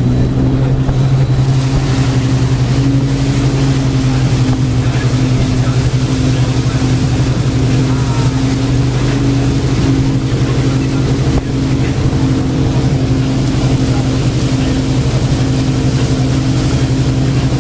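Moomba wake boat's inboard engine running at a steady pitch while pulling a wake surfer, with the rush of the churning wake behind the boat.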